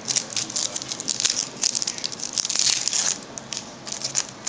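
Foil Yu-Gi-Oh! booster pack wrapper crinkling and tearing as it is opened by hand: a dense run of crackles for about three seconds, then a few softer crinkles.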